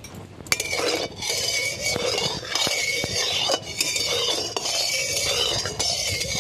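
Metal spatula stirring and scraping against a kadai of hot oil with salt in it, in a run of strokes broken by short pauses, with a few sharp clinks. It starts about half a second in.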